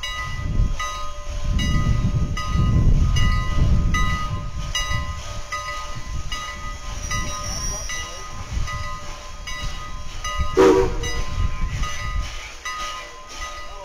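Steam locomotive bell ringing steadily at about two strokes a second, over the low chuffing rumble of a steam locomotive moving slowly. About ten and a half seconds in comes a short blast of a steam whistle, the loudest moment.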